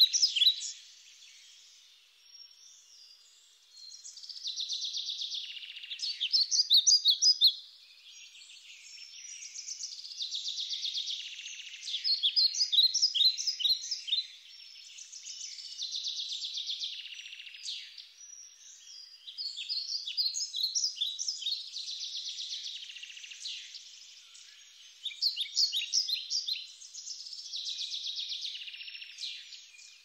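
Songbirds singing: phrases of rapid, high-pitched chirps and trills a few seconds long, repeating with short, quieter pauses between them.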